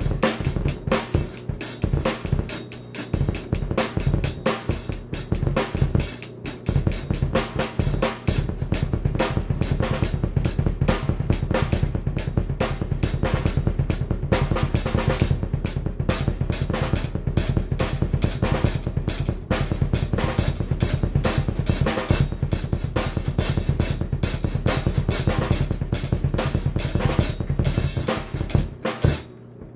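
Drum kit played with fast double bass drum strokes, a rapid stream of kick drum hits under snare and cymbals. The kicks become a near-continuous run about a third of the way in, and the playing stops shortly before the end.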